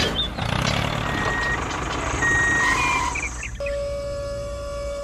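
Tractor engine running steadily, with a held pitched tone coming in about three and a half seconds in.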